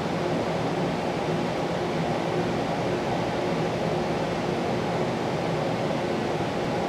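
Steady background noise with a faint low hum, like a fan or air conditioner running, with no other sounds in it.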